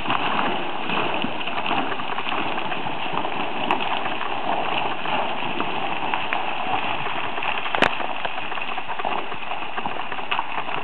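A boulder tumbling down a steep rocky cliff chute: a continuous clatter of rock striking rock and loose scree, with one sharp crack of impact about eight seconds in.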